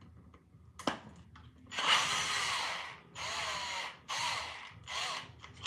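Power drill run in four short trigger bursts, its motor pitch rising and falling, backing out a bolt holding a string trimmer's air box and carburetor. A sharp click comes about a second in.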